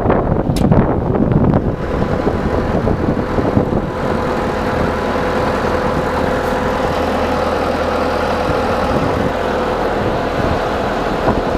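Bobcat T300 compact track loader's diesel engine running steadily at idle, with a steady hum through it. A few sharp knocks and clatter come in the first couple of seconds.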